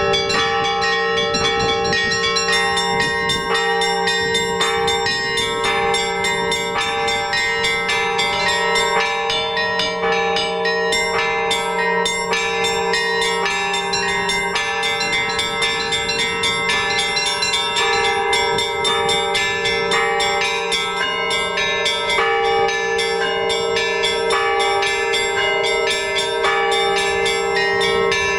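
Orthodox church bells rung by a bell ringer in a continuous peal: quick, repeated strikes of small bells over the lingering hum of larger bells.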